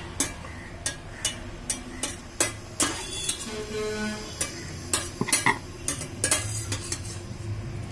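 A long metal spoon stirring cooked prawns in ghee inside a metal pressure cooker pot, with a run of irregular clinks and scrapes against the pot.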